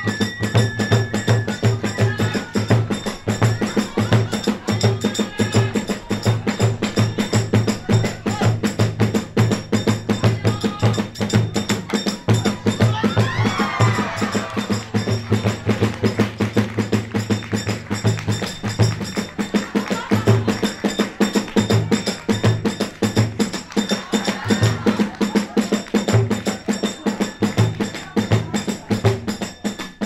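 Kagura hayashi ensemble playing a fast, driving rhythm: a taiko drum beating steadily, sharp strokes of hand cymbals and drum rims, and a higher flute-like line over it.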